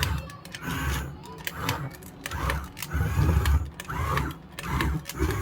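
Small electric motors whirring in short, uneven bursts, with sharp clicks between them.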